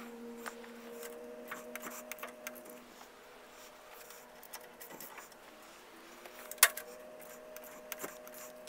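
Light metallic clicks and taps from a wrench working the lathe's leveling screws, with one sharper click about two-thirds of the way through, over a faint steady hum.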